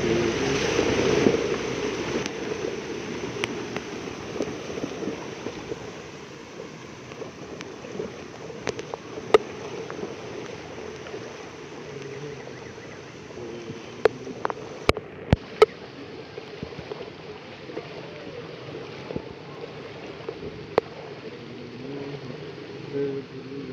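Steady rainfall, with a few sharp taps scattered through it; it is loudest in the first couple of seconds.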